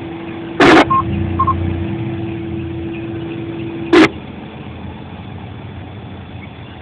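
Ham radio receiver on the test net: a steady hum, a loud crackle of static just under a second in, two short beeps, then a second crackle about four seconds in that cuts the hum off. Steady background noise follows.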